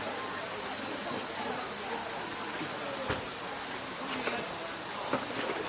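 Steady high-pitched chorus of insects buzzing without a break, with a few faint clicks of tableware.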